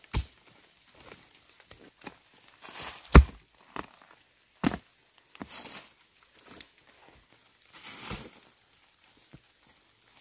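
Irregular knocks and thuds, several seconds apart, with rustling in between; the loudest knock comes about three seconds in.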